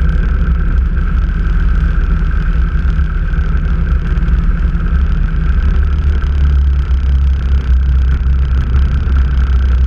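Motorcycle engine running steadily while riding at road speed, a loud, even, low-pitched drone with no changes in pace.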